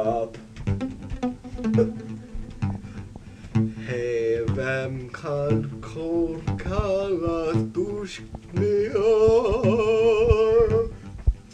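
A song: a singing voice holding long, wavering notes with no clear words, over plucked guitar and bass, with one long held note near the end.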